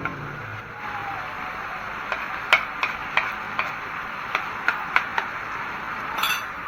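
Frog meat stir-frying in a pan with a steady sizzle, while a spatula clinks sharply against the pan about nine times from about two seconds in, then scrapes briefly near the end.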